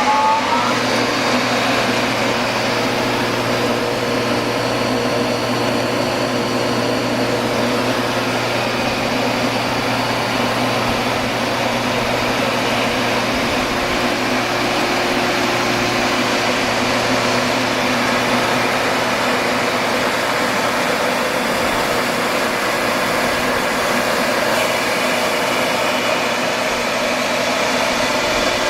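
Quincy Northwest 50 hp rotary screw air compressor, driven by a 460-volt three-phase electric motor, starting up and running. A rising whine from the motor coming up to speed levels off just under a second in, then it runs with a steady hum and whir.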